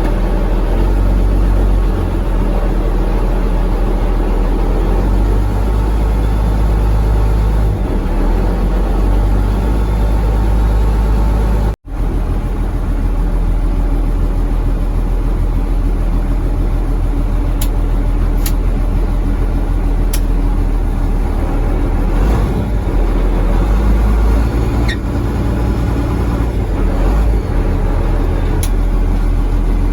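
A fishing boat's engine running steadily with a deep, low drone, with a brief break about twelve seconds in and a few faint ticks in the second half.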